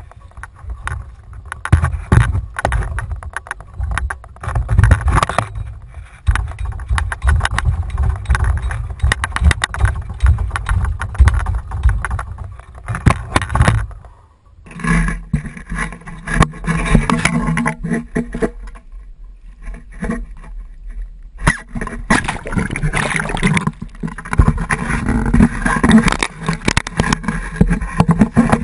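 Wind and water noise rumbling on a kayak-mounted camera, broken by frequent knocks and scrapes of handling against the kayak and mount. About halfway through, a low steady hum joins in.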